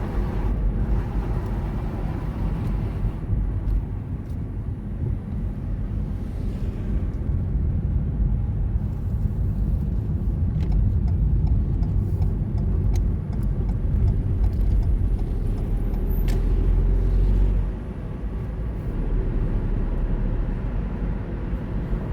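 Car being driven, with a steady low rumble of engine and tyres from inside the cabin. The rumble eases briefly about three quarters of the way through, with a few faint ticks.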